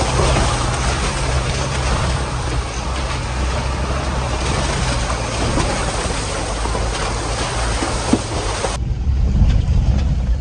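A vehicle being driven in heavy rain: a low engine drone under a loud, steady hiss of rain and tyre noise. About nine seconds in, the hiss cuts off sharply, leaving the engine drone.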